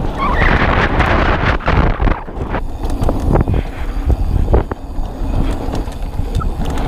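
A 2021 Polygon Siskiu T7 full-suspension 29er mountain bike rolling fast downhill on a dirt trail: wind rushes over the microphone along with tyre noise, and the bike rattles and clicks over bumps. The rush is strongest in the first two seconds or so, then eases.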